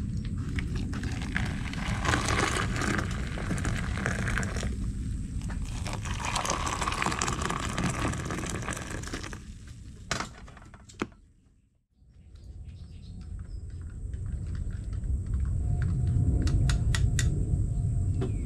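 Hot water poured from a kettle into two steel camp mugs: two pours of a couple of seconds each, over a steady low rumble. After a brief drop to near quiet comes a few light clicks near the end.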